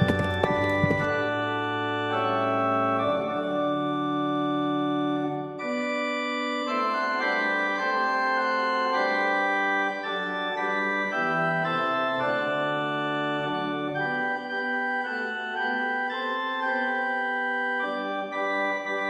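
Instrumental music on an organ-like electronic keyboard, playing held chords and a slow melody of sustained notes, with a few sharp clicks near the start.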